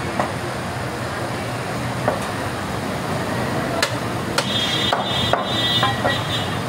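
Butcher's cleaver chopping goat meat on a wooden block: several sharp, irregular chops, coming faster in the second half.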